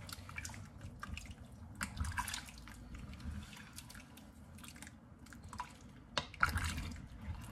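Wooden spoon stirring a thick, liquid stew of beef and vegetables in wine and broth inside an enameled cast-iron Dutch oven: wet sloshing with irregular soft scrapes and knocks of the spoon against the pot, busiest about two seconds in and again near the end.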